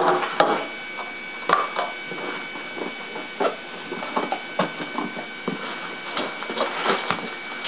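Packaging being handled as parts are lifted out of an RC truck's box: irregular rustling, crinkling and light knocks, over a steady hum.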